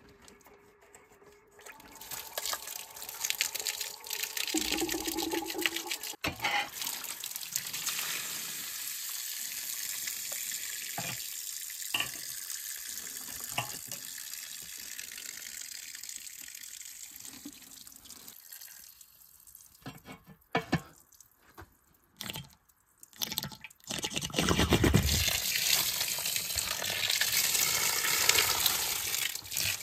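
Water running and splashing out of a hydraulic accumulator tank as its flange and fittings are undone, with a few knocks and clinks of metal partway through. Near the end the water gushes out loudly as the rubber membrane full of water is pulled from the tank.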